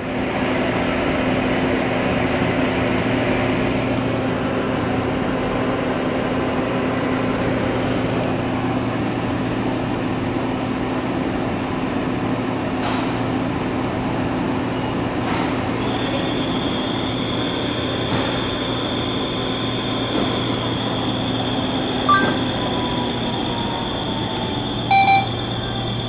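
Maytag top-load washing machine spinning its basket: a steady motor whine over a low hum. A higher whine joins about two-thirds through, and a couple of short electronic beeps sound near the end.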